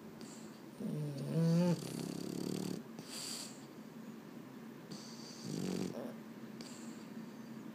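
Boston terrier snoring as it dozes off, with a long, wavering snore about a second in and a shorter one near six seconds, and softer breathy snorts between.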